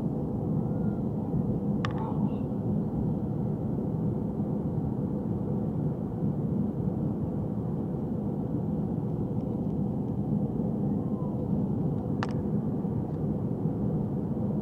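Jet airliner cabin noise on landing approach with the flaps extended: a steady rush of engines and airflow heard from a window seat. Two brief sharp clicks, about two seconds in and again about twelve seconds in.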